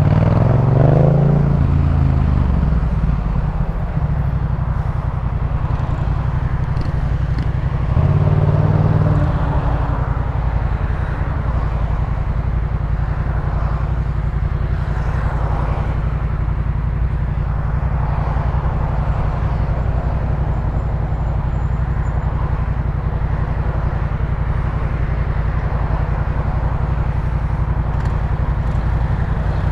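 Yamaha MT-07 parallel-twin engine through a Jeskap K4 full aftermarket exhaust, heard from the rider's seat. The revs climb briefly at the start and again about eight seconds in; otherwise it runs steadily at low revs.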